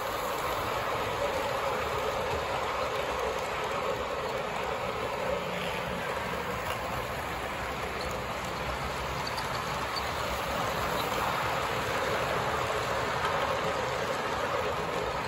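Model train running steadily past close by: a continuous whir of the locomotive's motor and its wheels rolling on the track.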